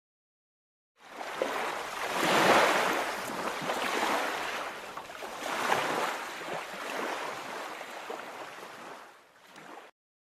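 Ocean waves washing onto a beach, a storybook sound effect: it starts about a second in, swells twice, and fades away near the end.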